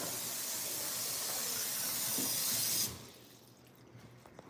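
A steady rushing hiss like water running from a tap, which stops abruptly about three seconds in.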